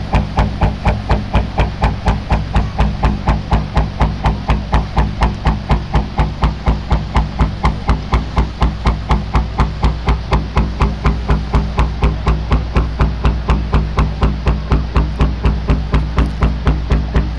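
Background music with a fast, even knocking beat over a steady low drone.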